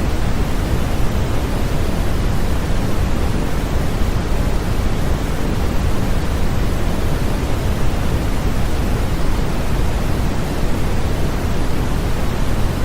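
Steady, unchanging sleep-aid white noise: an even hiss with more weight in the low end, closer to pink noise than pure white noise.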